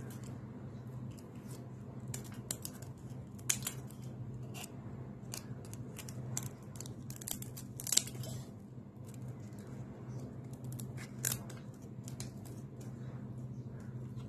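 Kitchen scissors snipping the legs and feelers off raw jumbo tiger prawns: irregular sharp snips, the loudest about three and a half, eight and eleven seconds in.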